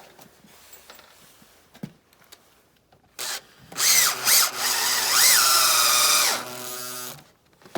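Cordless power drill driving a long screw into recycled poly plastic: a short blip of the trigger about three seconds in, then the motor runs hard for about three seconds with its whine rising and dipping under load, easing off before stopping.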